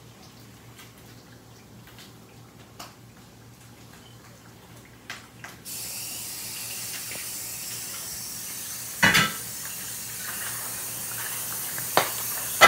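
A kitchen faucet is turned on about halfway through and runs steadily into a sink. Two loud clatters of dishes sound near the end. Before the water starts there are only a few faint clicks.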